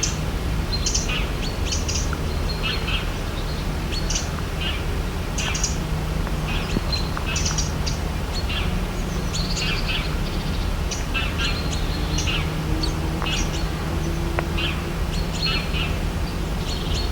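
Several birds chirping, many short high calls coming every second or so, over a steady low rumble.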